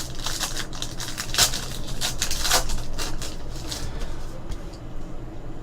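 Trading cards and their pack being handled: irregular rustling with light clicks and flicks.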